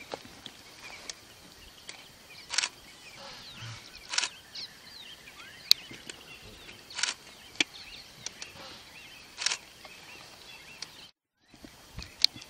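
Outdoor bush ambience with many faint short bird chirps, broken every couple of seconds by a short sharp click-like sound. The sound cuts out completely for a moment near the end.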